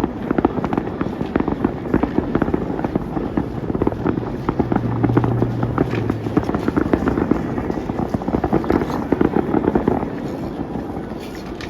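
Fireworks going off in a dense, rapid barrage of bangs and crackles that eases off near the end. A low steady hum sounds for a couple of seconds midway.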